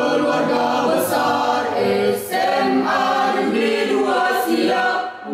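Mixed choir of teenage boys and girls singing a school march in unison, with long held notes.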